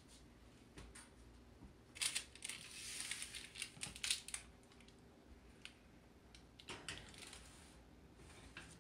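A metal baking sheet lined with parchment paper being lifted off the stovetop and slid onto an oven rack: a few light clicks, a louder scrape and paper rustle about two seconds in, and more light clanks around four seconds and near seven.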